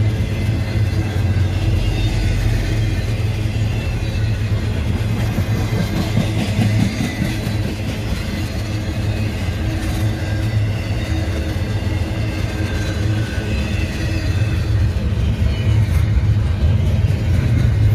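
Intermodal freight train of well cars carrying trailers and containers rolling past at close range: a steady low rumble of wheels and cars on the rails, a little louder near the end.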